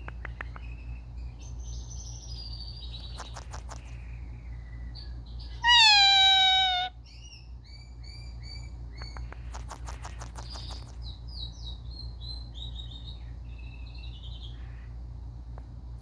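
Indian ringneck parrot making soft chirps and scattered clicks, with one loud, drawn-out call falling in pitch about six seconds in, over a low steady hum.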